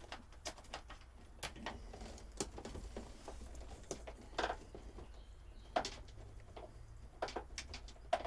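Scattered light clicks, taps and rustling from handling parts and old wiring, with a few short squeaks, over a low steady hum.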